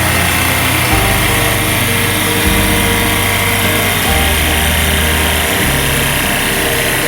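Background music with a deep bass line that steps to a new note about every second and a half, over a steady dense hiss.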